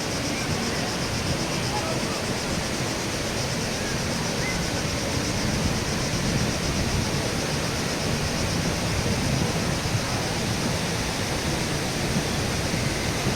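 Steady rushing of water from the Kravica waterfalls.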